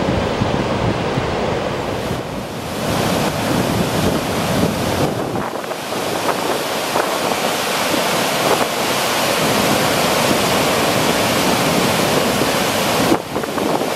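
Steady roar of released dam water, tumbling over a low weir into white water. In the first few seconds, wind rumbles on the microphone, and the low rumble drops away about five seconds in.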